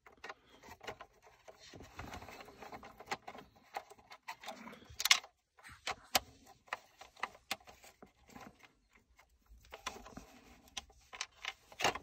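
Small hand nut driver turning tiny bolts out of a plastic transfer case selector switch: scattered light clicks, ticks and short scrapes of metal on plastic, with a sharper click about five seconds in.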